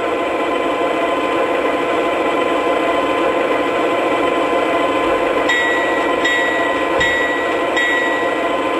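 Sound system of an MTH O-scale ES44DC model diesel locomotive playing a steady diesel engine idle through its speaker. About halfway through, a high tone comes in four times, each for under a second.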